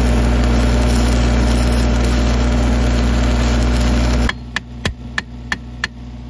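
Arc welding with a sparkler used as the electrode: a loud, steady hissing arc over the low hum of the welding machine. The arc cuts out about four seconds in. The machine hum carries on, and five sharp chipping-hammer taps knock at the slag on the fresh weld.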